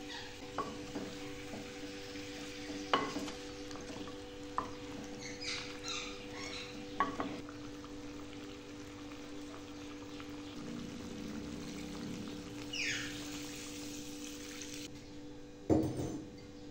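Cooking sounds at a clay pot: a utensil knocking and clinking now and then, with a stretch of sizzling and one loud knock near the end, over a steady hum.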